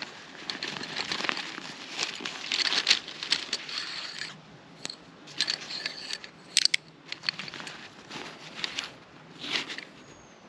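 Rustling of a fabric stuff sack as hands open it and draw out metal tent pegs, with two sharp clicks about two-thirds of the way through as the pegs knock together.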